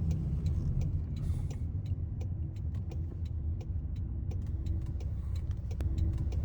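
A car on the move: a steady low rumble of engine and road noise, with scattered light clicks over it.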